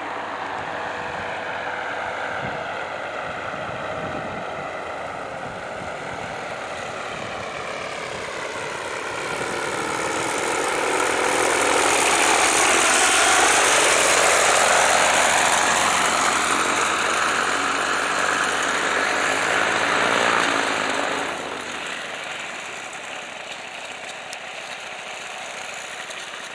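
Paramotor engine and propeller running in flight, a steady drone that grows louder from about ten seconds in and then drops suddenly a little past twenty seconds.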